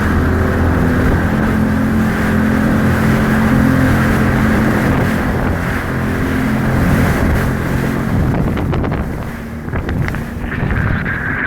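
Jet ski engine running steadily, with rushing water and wind. Near the end the engine note drops away and water splashes and slaps against the hull.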